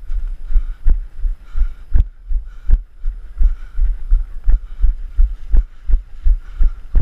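Footfalls of the person carrying the microphone, heavy low thuds jolting it in an even rhythm of about three a second.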